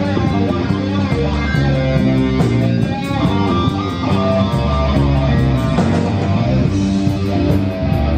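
Live rock band playing loudly: electric guitars and bass guitar in a riff, with drums.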